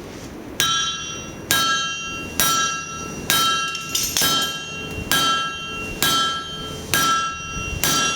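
Hammer blows on an anvil, forging an axe head: a steady rhythm of about one strike a second, nine in all, each with a bright metallic ring that carries on between strikes.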